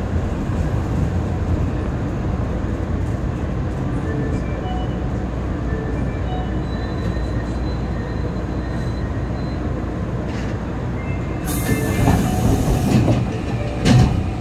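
Osaka Metro Midosuji Line subway train pulling out of a station: a steady rumble of wheels on rail, with faint high tones above it. Near the end comes a hiss of about a second, then a single loud knock.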